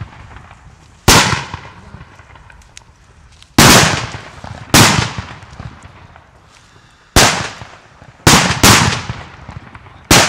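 Thrown firecrackers going off on open ground: seven sharp bangs at uneven intervals, each trailing off in an echo, with two in quick succession shortly before the last.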